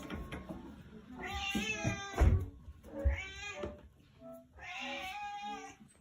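Domestic cat meowing three times in a baby-like voice, the first call the longest. There is a short, loud thump about two seconds in.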